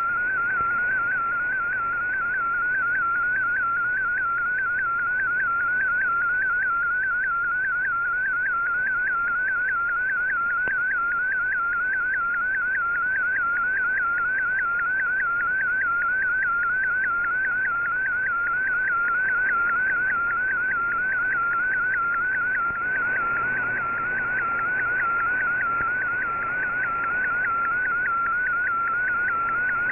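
Shortwave Radiogram picture transmission received on an Icom IC-R8600: a single data tone that warbles evenly in pitch a few times a second, over receiver hiss. It is the image signal that Fldigi is decoding line by line. The hiss thickens a little near the end.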